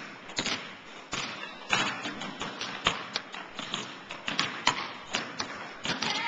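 Basketballs bouncing and players' feet on a hardwood gym floor: irregular thumps and taps, several a second, echoing in the hall.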